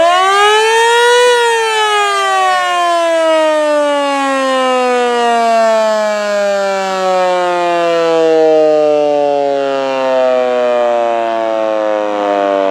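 An electromechanical warning siren winding up to its peak about a second in, then coasting down in one long, slowly falling wail as the rotor spins down.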